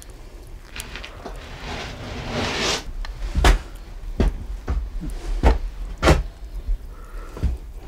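A rustling swell, then about six heavy, uneven footsteps on a wooden floor.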